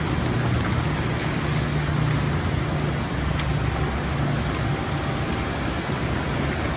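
Steady rush of swollen, fast-flowing floodwater in a creek, under a low, constant rumble of road traffic.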